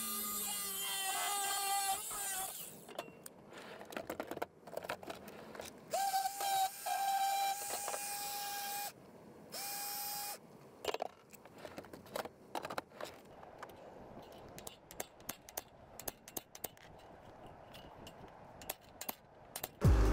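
Angle grinder cutting through a thin metal garden-edging strip; the cut ends and the grinder winds down about two and a half seconds in. Then a small sander runs in two short bursts, the first about three seconds long and the second about one, on the cut metal. Scattered clinks and knocks of metal and tools being handled follow.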